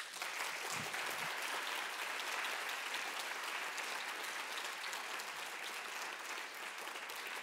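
Audience applauding: steady, dense clapping from a large crowd.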